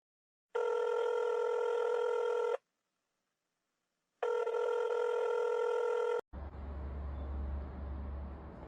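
Two steady electronic tones, each about two seconds long with a short gap between, like a phone ringing; then a low hum with hiss near the end.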